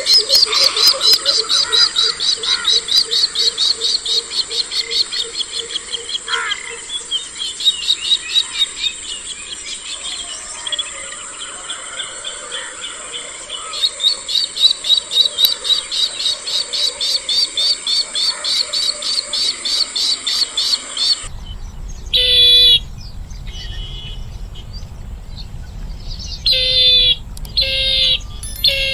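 Bronze-winged jacanas calling: long runs of rapid, repeated high piping notes, two or three a second. About two-thirds of the way through the sound changes to a few separate, louder call phrases over a steady low rumble.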